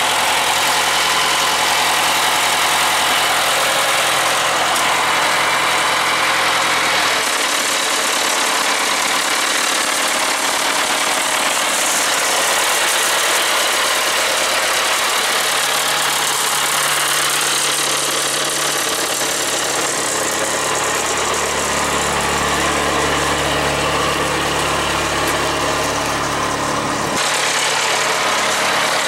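John Deere diesel engine of a Kilby prune shaker running steadily. Its low rumble weakens about seven seconds in, swells again in the later part and falls away near the end.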